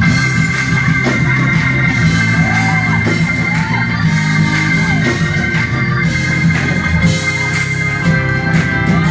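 Live gospel music from a church choir and its band, starting up with long held chords over a strong, steady bass, and voices gliding over them.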